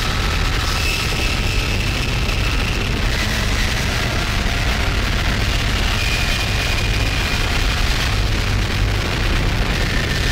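Dark industrial noise music: a dense, steady wall of noise with a deep rumble underneath and faint high held tones that change pitch every second or two.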